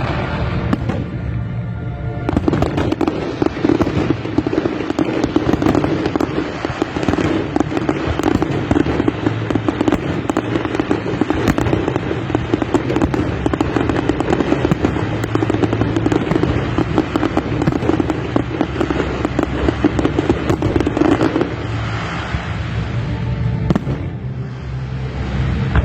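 A long barrage of fireworks crackling rapidly, many small bangs packed closely together, starting about two seconds in and stopping about four seconds before the end, over background music.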